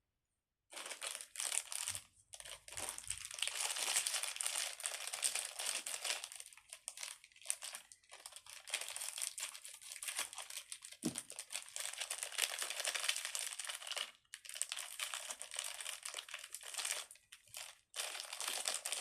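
Plastic packaging crinkling and rustling as it is handled, steadily for most of the stretch with a few brief pauses.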